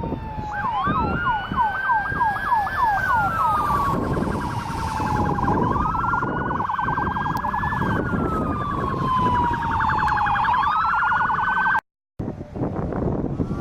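Emergency vehicle's electronic siren, cycling through a slow rising-and-falling wail, quick yelps and a very rapid warble, over a low rumble. It cuts out briefly near the end.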